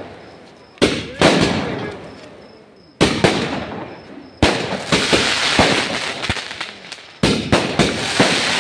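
Fireworks and firecrackers going off: sharp loud bangs a second or two apart, each fading away slowly, with smaller crackles between them. Near the end comes a quick run of cracks and pops.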